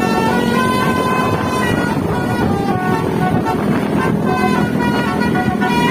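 Indonesian bus 'telolet' multi-tone air horn playing a tune: a string of held horn notes stepping up and down in pitch, over a low vehicle rumble.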